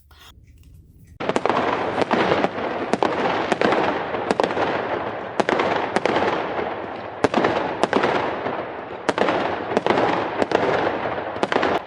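Fireworks going off: a steady crackle with sharp bangs about every half second to a second, starting about a second in.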